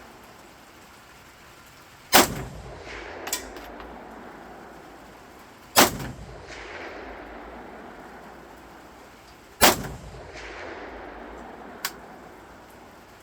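Three single shots from an AKM-pattern rifle in 7.62×39mm, fired slowly about three to four seconds apart, each followed by a rolling echo. Two much fainter sharp clicks come between them, one after the first shot and one near the end.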